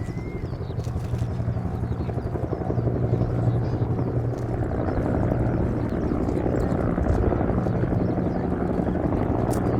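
Helicopter rotor beating in fast, even pulses over a steady low drone, growing gradually louder.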